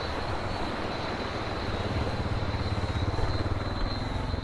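Steady rush of waterfall cascades, with a constant high insect whine above it.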